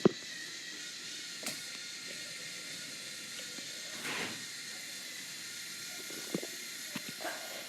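K'nex model roller coaster running: a steady hiss, a sharp click at the very start, a few light clicks and ticks, and a brief swell of rattling noise about four seconds in.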